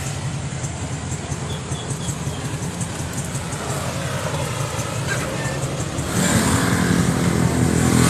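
Steady hum of road traffic, cars and motorcycles on the road, with a few faint high chirps between about one and a half and two and a half seconds in and the sound growing louder about six seconds in.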